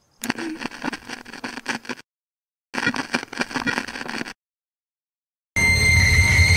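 Two bursts of crackling static, each cut off abruptly, then after a silent gap a loud steady distorted drone with a thin high whine starts near the end.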